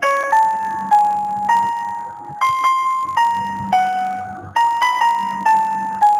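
Background music: a slow piano melody of single notes, each struck and left to fade.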